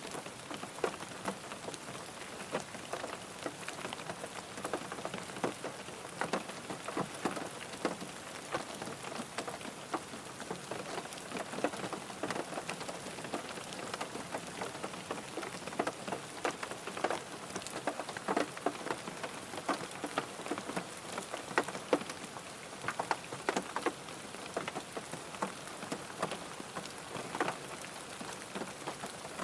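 Steady rain falling on a car, with many irregular drop taps over a continuous hiss.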